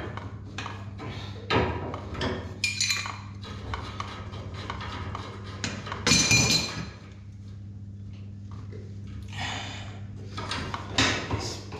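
Water pump pliers and fittings clinking and scraping on copper pipework as a compression fitting is worked loose: a run of short metallic clicks and taps, the loudest a ringing clink about six seconds in. A steady low hum runs underneath.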